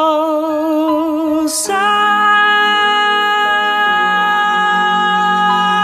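Music from a Vietnamese ballad: a sung note held with vibrato, ending about one and a half seconds in, then steady sustained instrumental chords.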